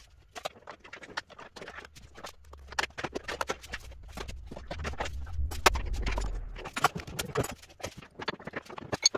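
Hand tools clicking and knocking against metal in a car's engine bay: irregular taps and clinks throughout as an old engine mount is worked at, with a low rumble for a few seconds in the middle.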